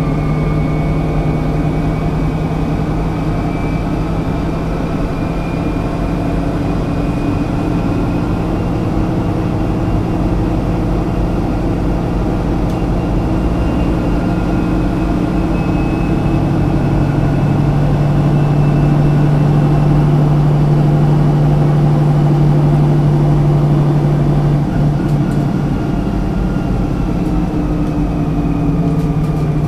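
1971 Büssing DE double-decker bus's diesel engine running under way, a steady drone whose pitch climbs slowly over the first half of the stretch, holds, and eases down near the end.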